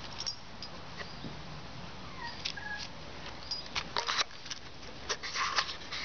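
Husky puppy and a small dog at play: a few short, high whines and yips, with scuffling and louder noisy bursts about four and five and a half seconds in.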